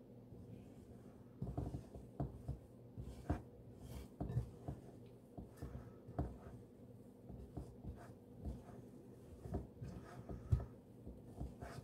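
Bread dough being mixed and kneaded by hand in a ceramic bowl: irregular soft thumps, a few a second, starting about a second and a half in, as the hand presses and turns the dough.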